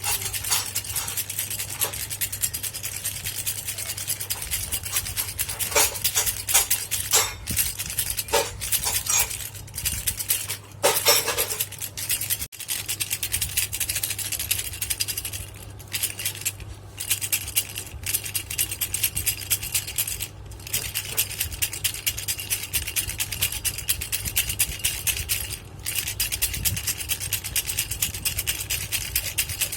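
Baby rattle shaken continuously: a dense stream of fast small clicks and clinks, over a steady low hum.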